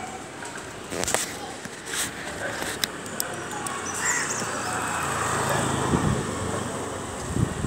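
Clicks and rustling of things being handled in a bag, then a low engine hum that swells and fades in the middle, with faint voices near the end.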